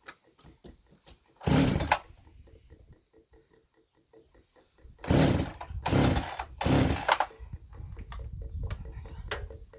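Two-stroke chainsaw idling with a fast, even ticking, opened up to full throttle in four short loud bursts, the last three close together, then running on at a lower, steadier level.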